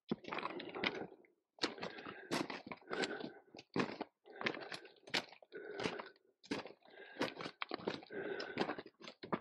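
Footsteps crunching and clinking across loose talus rock at a steady walking pace, about three steps every two seconds, with sharp clicks of stones knocking together underfoot.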